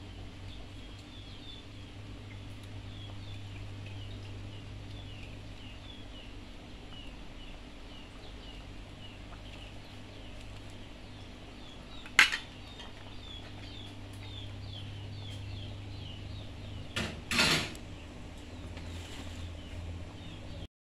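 Metal spatula clanking against an aluminium wok: one sharp knock about twelve seconds in and a quick pair a few seconds later, which are the loudest sounds. Under them is a steady low hum and a run of quick, high chirps.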